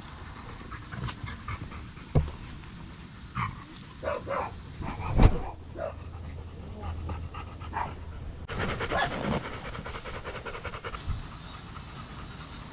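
Large black retriever panting rapidly with its mouth open, the panting strongest in the second half. A few knocks and thumps come earlier, the loudest about five seconds in.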